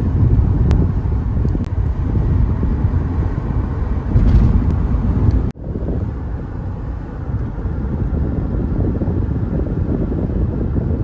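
Car driving at speed, steady road and engine rumble with wind noise heard from inside the cabin. About halfway through the sound cuts out for an instant, then the same driving noise continues.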